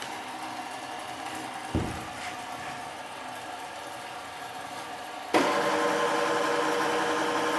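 Metal-cutting band saw running with a steady mechanical hum and a single low thump about two seconds in. About five seconds in, a much louder, harsher sound with a held ringing tone starts suddenly and stops abruptly near the end.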